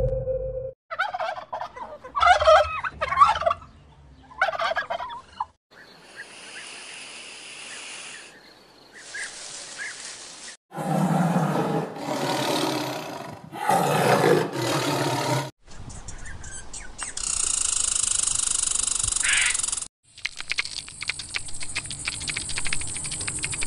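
A string of short animal-sound clips: warbling pitched calls in the first few seconds, a tiger growling in the middle, and rapid dry clicking near the end.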